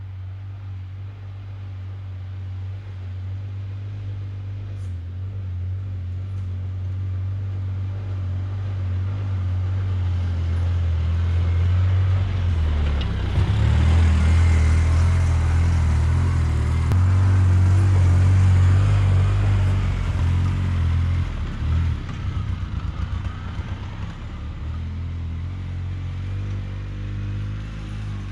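Polaris Ranger side-by-side utility vehicle running as it drives along a dirt trail. Its steady engine hum grows louder to a peak about halfway through as it comes close, then drops back with an uneven, choppy stretch as it moves away.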